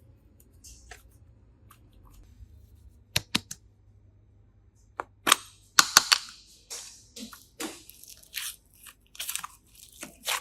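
A couple of sharp clicks, then loud snaps about five seconds in, followed by a run of short crackling, crunching noises from something being handled close to the microphone.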